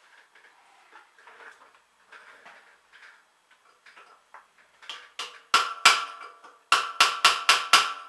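Hammer striking a screwdriver held against a large steel circlip on a concrete mixer's drive shaft, knocking it loose: a few seconds of quiet handling, then about seven sharp, ringing metal-on-metal taps, two and then a quick run of five at about four a second.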